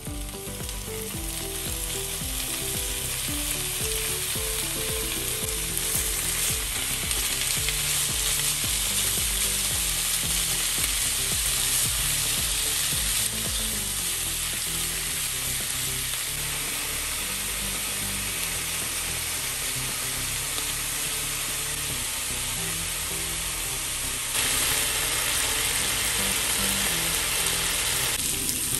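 Thinly sliced pork sizzling in a hot nonstick frying pan. The sizzle builds over the first couple of seconds as the meat goes in and continues as the pieces are stirred with chopsticks. It gets suddenly louder about 24 seconds in.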